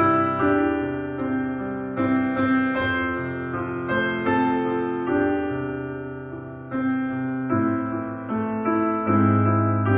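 Solo piano music: a slow piece of chords struck and left to ring, a new chord about every second.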